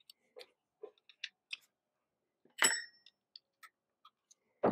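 Light, irregular metallic clicks and clinks of a hand wrench working on a sway bar bracket bolt, with one louder ringing clink about two and a half seconds in.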